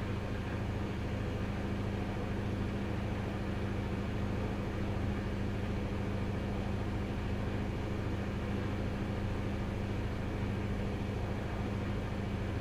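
Front-loading washing machine running, a steady low motor hum with no knocks or changes in speed.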